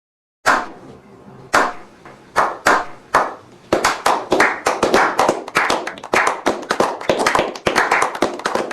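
Hand clapping: a few scattered claps at first, then from about four seconds in a quick, continuous run of claps.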